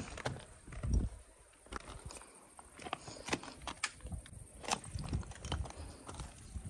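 Footsteps in sneakers crunching over loose chalk rubble and stones, with irregular sharp clicks of chalk pieces shifting underfoot and a few low thumps.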